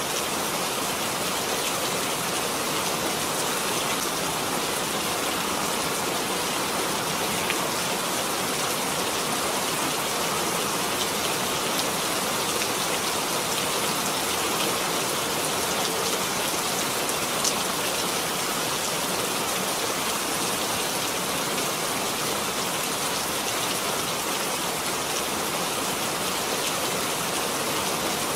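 Steady rainfall, an even hiss of rain with a few faint drop ticks.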